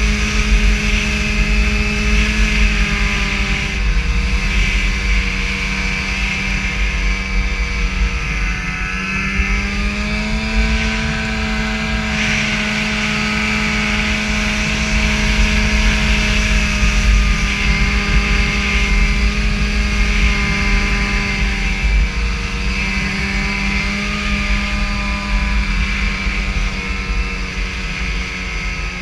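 Snowmobile engine running at cruising speed, its pitch dipping and rising a few times as the throttle changes, with a heavy low wind rumble on the microphone.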